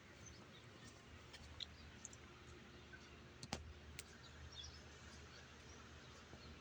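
Near silence: faint background hiss with two brief clicks about three and a half and four seconds in.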